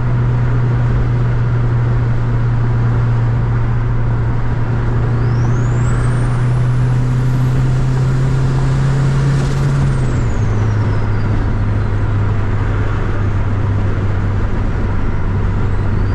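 Turbocharged Honda Accord's built K-series four-cylinder engine and exhaust droning steadily under way, with a high turbo whine that climbs for several seconds and then falls away as the engine note drops about ten seconds in. A second turbo whine starts climbing near the end.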